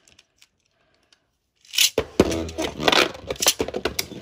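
Two Beyblade Burst tops, Erase Devolos and Venom Devolos, are launched with a sudden ripping sound about two seconds in. They land in a plastic stadium and spin, scraping and clattering against each other and the walls in quick repeated knocks.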